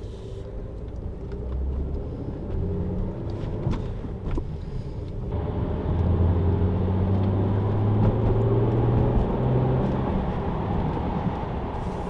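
BMW N53 straight-six engine running as the car drives off and picks up speed, with road noise. It grows louder about halfway through. The engine now has freshly replaced fuel injectors and is still cold.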